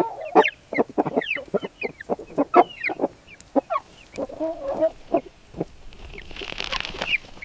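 Chickens clucking: a quick run of short, separate clucks at varied pitches, then a brief noisy rustle about six seconds in.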